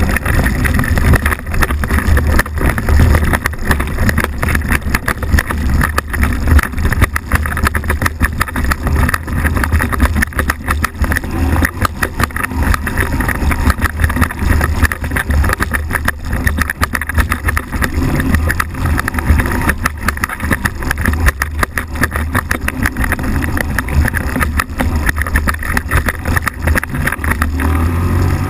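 Microlight trike's engine and pusher propeller running steadily behind the pilot, with heavy wind buffeting on the microphone.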